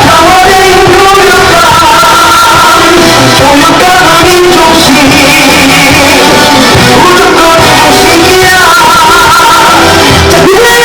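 A Korean election campaign song with singing, played very loud.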